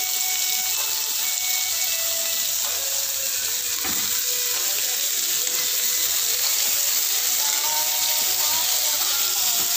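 Sliced bitter melon and onion frying in oil in a small pan, a steady sizzle, with a song playing faintly underneath.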